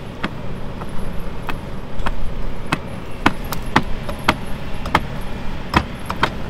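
Bobcat tracked skid steer running steadily, with a string of sharp metallic clanks and knocks as its thrown rubber track and undercarriage are worked back into place.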